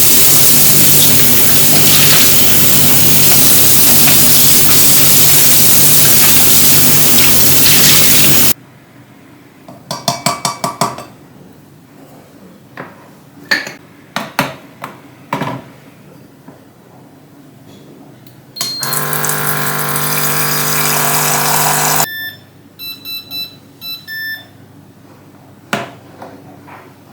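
Turkish coffee machine at work: a loud steady rushing hum that cuts off suddenly, then light clinks of cup and pot, a further short run of about three seconds, and a string of short electronic beeps from the machine signalling the coffee is done.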